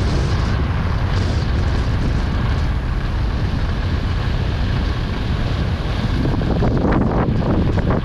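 Heavy wind buffeting on the microphone of a camera moving at skiing speed down a slope, over the hiss of skis running on groomed snow.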